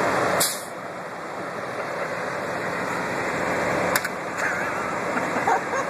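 Steady rumble of semi trucks idling, with a short rush of noise just under half a second in and a faint click about four seconds in.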